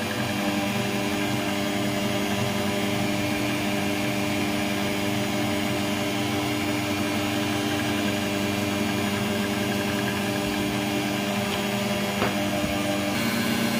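Motor of an electric pasta-rolling machine running steadily with a hum as sheets of dough are fed through, with one small click near the end.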